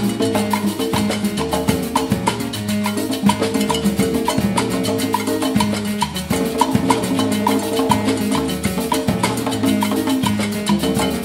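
Percussion ensemble playing a salsa groove: congas and timbales with a mounted block struck in a steady repeating pattern, drum kit, and a marimba carrying the melody.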